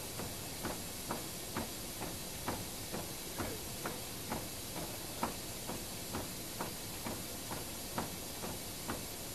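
Newspaper press folder running steadily: a regular mechanical clack about twice a second over a constant machine hiss.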